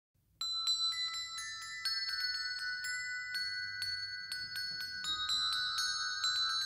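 A rack of small brass bells struck with mallets, playing a quick melodic run of ringing notes that begins about half a second in, each note ringing on under the next.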